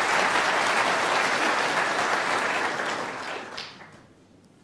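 Snooker arena audience applauding a break, dying away about three seconds in. A single sharp click comes at the very end as the cue tip strikes the cue ball.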